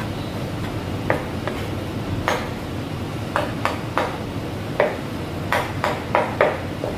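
Kitchen clatter: about a dozen sharp, irregular clinks and knocks of utensils and dishes, a few with a short ring, over a steady low roar.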